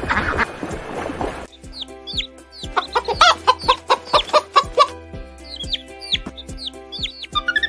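Chickens clucking, mixed with many short, high peeps that fall in pitch, over background music with a steady beat. The clucking starts about a second and a half in, when an earlier, noisier sound cuts off.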